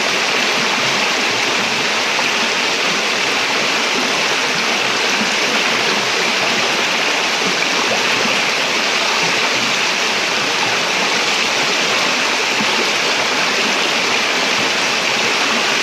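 Shallow river water rushing steadily over rocks, an even, unbroken hiss of flowing water.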